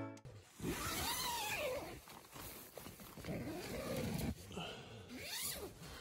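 Three drawn-out vocal sounds, each rising and then falling in pitch.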